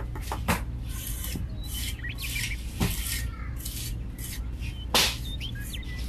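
Small metal hand trowel scraping across fine sand as it smooths the ground, a gritty rasp of repeated strokes with a few sharper scrapes, the loudest about five seconds in.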